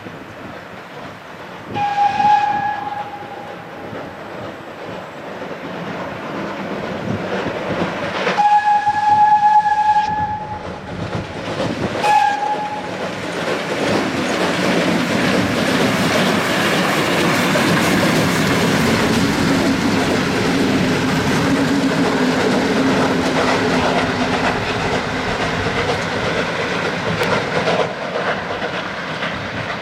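Steam locomotive whistle blowing three times: a short blast, a long blast, then a short blast. The locomotive and its train then come up and pass, a loud steady rumble of engine and wheels on the rails.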